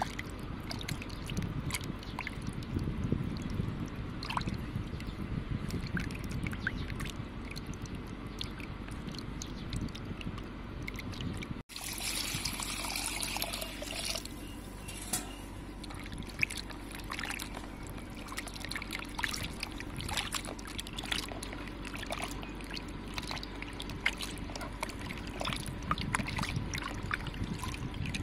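Raw chicken breast pieces being washed by hand in a bowl of water: steady sloshing and splashing with small wet clicks. A few seconds past the middle, a stream of water pours into the bowl for about two seconds.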